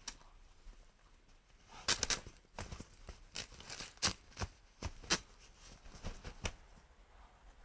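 A rooster and a drake fighting: wings beating and bodies scuffling in snow, heard as an uneven string of about a dozen sharp slaps starting about two seconds in.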